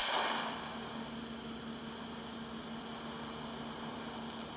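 TIG welding arc burning steadily with an even hiss and hum; it is louder for about the first half second after being struck, then settles.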